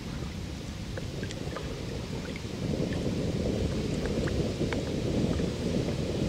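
Wind buffeting the microphone: a low, uneven rumble that grows louder about two and a half seconds in, with a few faint short ticks above it.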